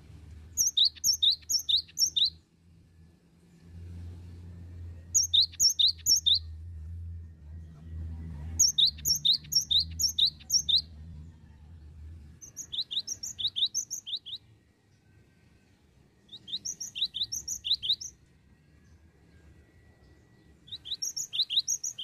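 Cinereous tit singing: six bursts of quick, ringing repeated notes, about five notes a second, each burst about a second and a half long with a few seconds' pause between. A faint low hum sits under the first half.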